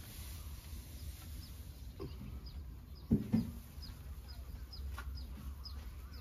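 Dull knocks of a tin cover being lifted off a straw-ash roasting pit and set down, the loudest pair about three seconds in, over a steady low rumble. A bird gives short, falling chirps about three a second through most of it.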